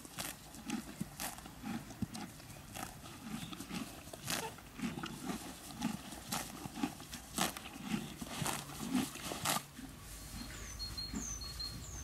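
A horse grazing right by the microphone: grass ripped off in sharp tears roughly once a second, with muffled chewing between them. It stops about ten seconds in, and a bird chirps a few times over a low hum.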